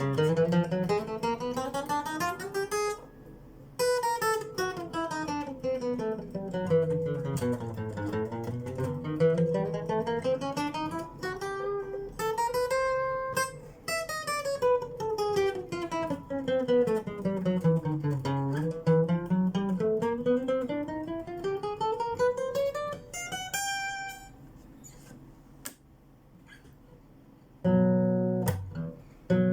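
Phill Pro acoustic guitar played in quick single-note runs that climb and then descend the neck, several times over. After a short pause, strummed chords start near the end.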